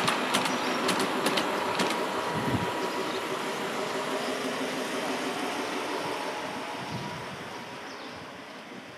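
A 3½-inch gauge model train running on its track: a quick series of wheel clicks in the first two seconds over a steady rolling rush, which grows steadily fainter.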